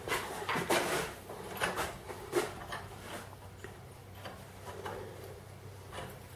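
Irregular metallic knocks and clunks of a Bosch piezo diesel injector being handled and set in the jaws of a steel bench vise. The knocks are closest together in the first three seconds, then fainter.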